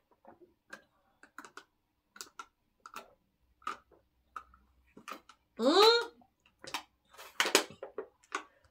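People gulping water from plastic bottles: a string of short swallowing clicks, roughly one or two a second. A brief voiced sound, rising then falling in pitch, comes about two-thirds of the way in and is the loudest thing.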